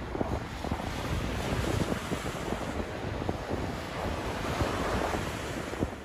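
Strong wind buffeting the microphone: a steady rushing noise with a low, gusting rumble.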